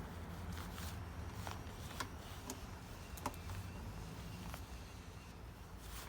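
Faint, scattered clicks and light taps of small hand tools working on the engine, over a low steady background hum.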